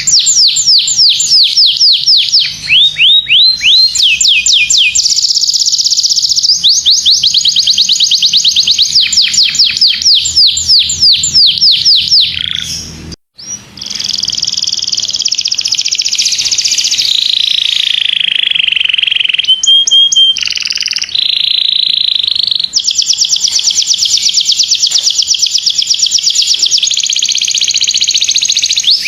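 Domestic canary singing a continuous song of fast repeated trills and rolls, with a short break about 13 seconds in.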